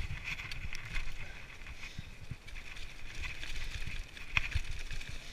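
Mountain bike rolling downhill over dry leaves and dirt on a forest trail, with a steady rumble of the tyres and scattered knocks and rattles from the bike over bumps, the sharpest about four seconds in.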